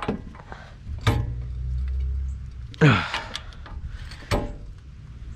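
A click-type torque wrench is pulled hard on a front CV axle nut to 203 foot-pounds, with sharp clicks from the wrench and hub. A loud short sound falls in pitch about three seconds in, and a final sharp click comes just after four seconds, the wrench signalling that the set torque is reached.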